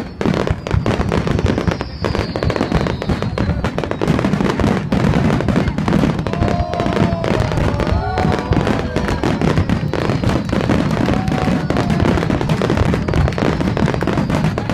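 Fireworks display: a continuous dense run of bangs and crackles, with high falling whistles from time to time.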